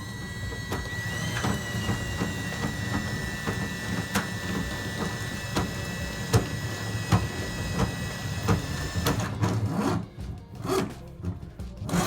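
Motor-driven drain-cleaning cable machine running with a steady whine while the cable knocks and rubs irregularly in the tub drain line. The motor stops about nine seconds in, leaving scattered knocks and scraping of the cable.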